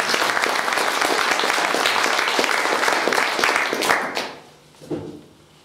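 Audience applauding in a hall, many hands clapping at once, fading out about four seconds in.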